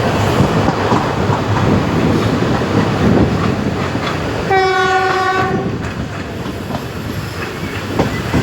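Train running along the track with a steady rumble and rattle. About four and a half seconds in, the train's horn sounds once, a single steady note held for a little over a second.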